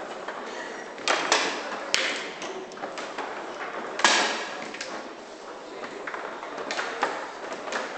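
Tournament foosball being played on an Ullrich table: sharp knocks of the ball struck by the players' figures and hitting the table walls, with rods clacking. The knocks come irregularly, a pair a second in, the loudest about four seconds in, and a cluster near the end.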